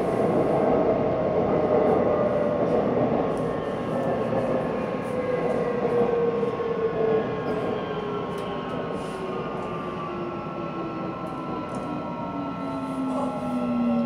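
Shinbundang Line subway train heard from inside the car as it slows into a station: a rumble of wheels on rail, with its motor whine falling steadily in pitch as the train brakes.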